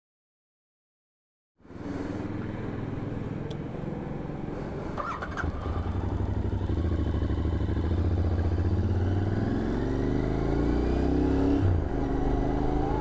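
Royal Enfield Continental GT 650's parallel-twin engine running on the move, starting about a second and a half in. Its pitch rises as the bike accelerates, then dips briefly near the end with a gear change.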